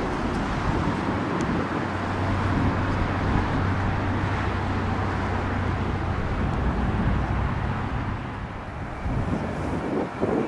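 Jet airliner on approach to land, a steady engine rush with a low hum that fades after about eight seconds, mixed with wind noise on the microphone.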